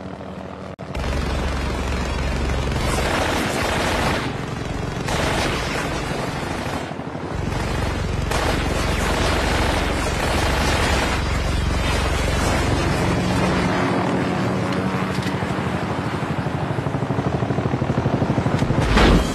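Action-film battle soundtrack: a helicopter, gunfire and explosions over music, with a loud blast near the end.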